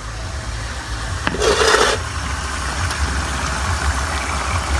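Steady low rumble of a lit gas stove burner under a pan of simmering adobo sauce, with a faint hiss on top. A short rushing noise comes about a second and a half in.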